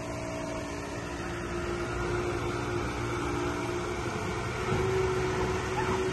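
Steady engine hum of a passenger tour boat under way, with a few held tones over a low rumble, growing a little louder about two seconds in and again near the end.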